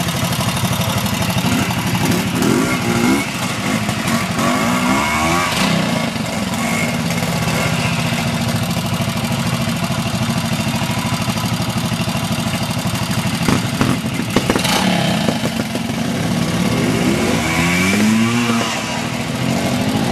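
Trial motorcycle engines running steadily, with the throttle blipped up and down in short revving bursts several times.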